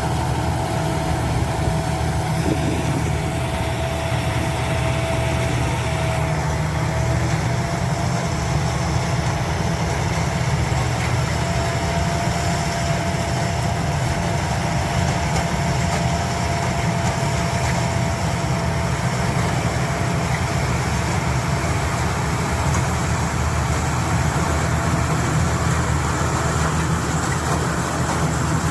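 Rice combine harvester running steadily with a constant low engine drone and a thin, steady whine above it.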